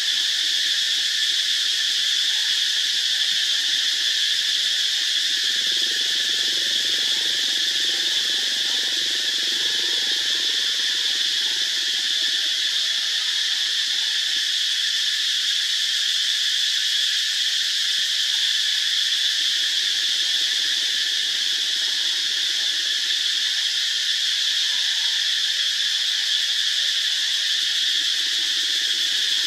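Steady, high-pitched drone of an insect chorus in the trees.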